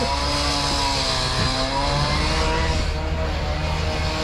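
Diesel engine of a Case compact track loader running steadily, its pitch wavering slightly.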